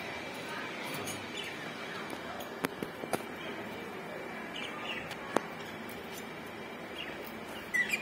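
Budgerigars giving a few short, scattered chirps, the loudest pair near the end, with three sharp clicks in between.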